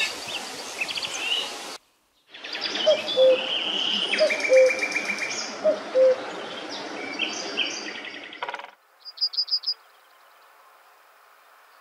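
Common cuckoo calling its two-note falling "cuck-oo" three times, over other songbirds singing higher. Near the end a yellowhammer sings a quick run of short, high repeated notes.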